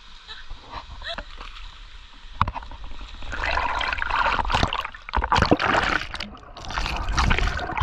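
Water splashing close against the camera as a swimmer paddles in a river pool. The splashing is faint for the first three seconds, then loud from about three seconds in. Just after six seconds the sound is briefly muffled as the camera dips under the surface.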